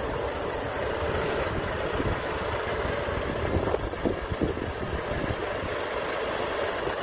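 Diesel engine of a Volvo FH truck running as it drives slowly past with a curtainsider trailer, with wind buffeting the microphone.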